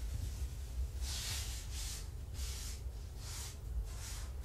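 A run of about six short, scratchy brushing strokes on a surface, a little under two a second, starting about a second in.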